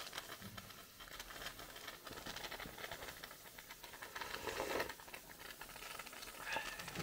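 Faint fizzing and crackling of a plastic bottle of cola as its cap is eased open, with a louder rush of fizz about four and a half seconds in; the cola is foaming up inside the bottle.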